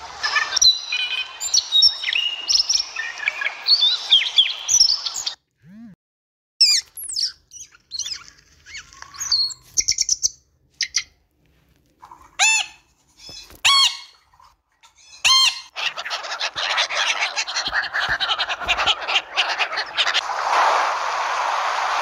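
Busy chirping calls over a steady hiss for about five seconds. After a short gap comes a string of separate harsh squawks from a blue-and-gold macaw. Then a steady wash of waves breaking on a beach takes over for the last several seconds.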